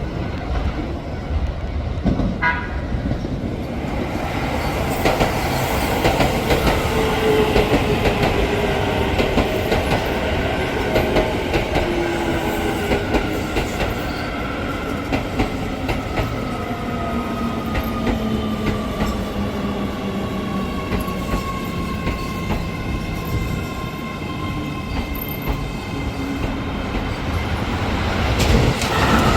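Keio Line electric train running on the rails, with a motor whine that falls slowly in pitch as the train slows. The wheels clatter over the rail joints, and the sound grows louder near the end.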